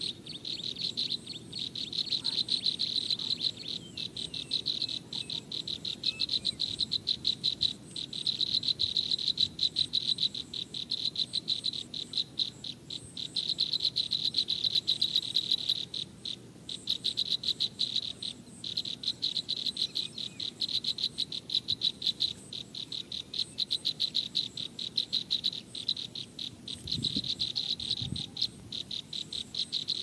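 Insects chirping steadily: a rapid, high-pitched pulsing trill that runs in phrases of a second or two with short breaks. A couple of soft low bumps come near the end.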